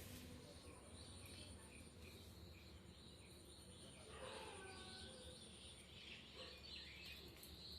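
Faint bird chirps, short and repeated, over quiet background hiss.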